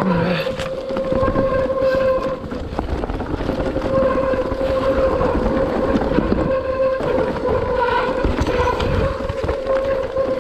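Mountain bike ridden down a trail: a steady buzzing hum that breaks off a few times, over a rough rumble from the tyres on the ground and wind on the microphone.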